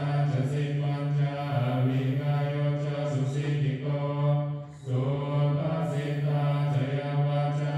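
Buddhist chanting on a low, near-monotone recitation pitch, in long phrases with a brief breath about five seconds in.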